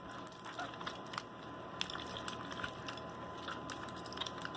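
Hands squeezing and kneading wet homemade slime to press the liquid out: faint sticky squishes with scattered small clicks and crackles.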